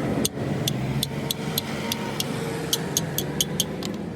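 Irregular light clicks, a few a second and bunched together near the end, over a steady low mechanical rumble.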